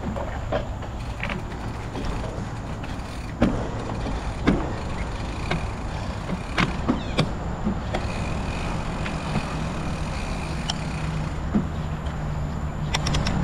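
Riding a bike over a rough off-road track: a steady rumble of tyres and wind with scattered sharp knocks and rattles from the bumps.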